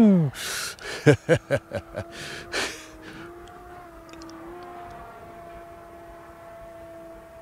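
A run of short, loud gusty bursts and thumps over the first three seconds, then the Hangar 9 Fun Scale P-47's electric motor and propeller droning steadily at a distance, with a slight wobble in pitch midway.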